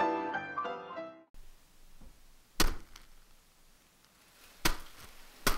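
Plucked-string and piano intro music that cuts off about a second in, then a quiet room with three short, sharp thuds, the last two close together.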